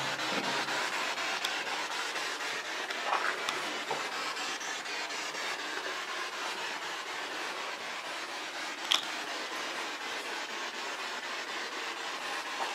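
Steady hiss of static, with faint ticks throughout and a single sharp click about nine seconds in.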